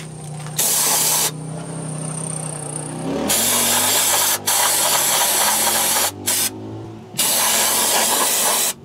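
Aerosol brake cleaner sprayed through its straw onto rear drum brake shoes and backing plate, hissing in several bursts: a short one, a long one of about three seconds, a brief one, and a last one of about a second and a half.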